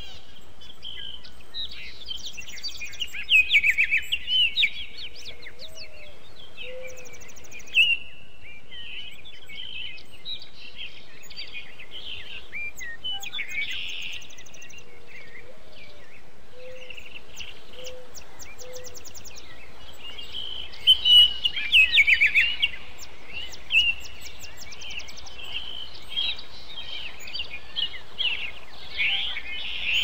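Several songbirds singing and calling over a steady background hiss, with the loudest bursts of song about three seconds in and again around twenty-one seconds in. A few faint low calls come in between.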